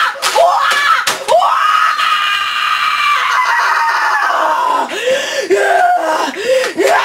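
An angry boy screaming incoherently in a rage. There is one long, high scream, held for several seconds and slowly falling in pitch, then a run of short yelping shrieks, with a couple of sharp knocks in the first second or so.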